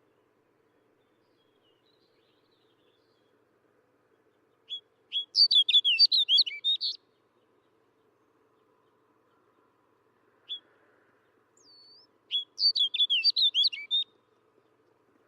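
Snow bunting singing: two short, rapid warbled song phrases of high notes, each about two seconds long, one about five seconds in and one near the end, each preceded by a single note. A faint steady low hum lies underneath.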